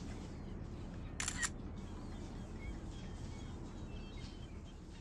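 A camera shutter clicks once, a quick double click about a second in, over a steady low outdoor rumble with a few faint bird chirps.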